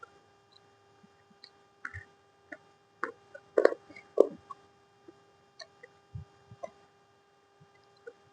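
Irregular small clicks and taps, a few louder ones in the middle, over a faint steady electrical hum.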